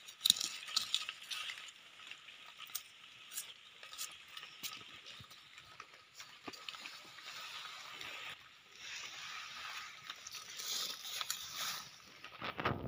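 Knife digging and scraping in dry soil and leaf litter, with scattered small clicks and rustles over a steady high hiss.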